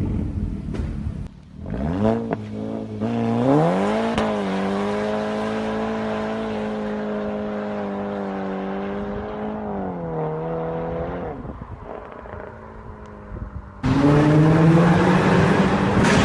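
Exhaust of a tuned VW MK6 GTI's turbocharged 2.0 four-cylinder, through a Corsa turboback with the resonator removed. The engine note falls, a few sharp pops come about two seconds in, then the revs climb and hold steady for several seconds before easing off and fading. A much louder burst of revving starts suddenly near the end.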